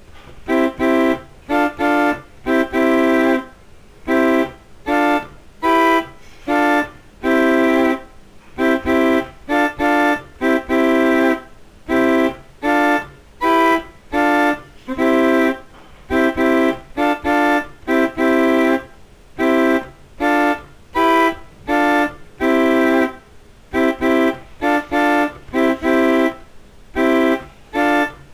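Instrumental music: sustained keyboard-like chords played as short stabs with brief gaps between them, in an uneven rhythm whose phrase repeats about every seven and a half seconds.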